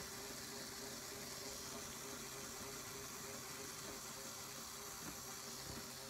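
Faint steady hiss with a low hum: room tone.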